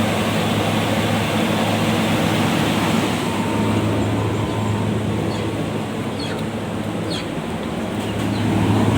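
A paddy grain dryer's blower fan runs steadily during a test run: a constant rush of air over a low, even hum.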